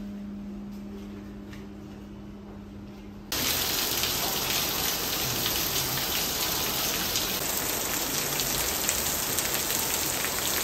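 Loud steady hiss of falling water, starting abruptly about three seconds in. Before it, a quieter stretch with a low steady hum.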